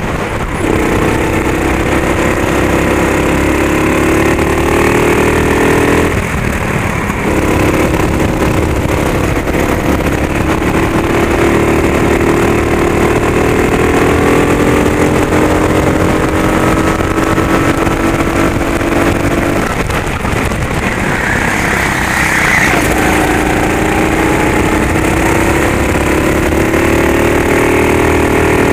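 Racing kart engine at full race pace, its pitch climbing steadily as it accelerates and falling away sharply as the driver lifts for a corner, once about six seconds in and again about twenty seconds in, before it climbs again.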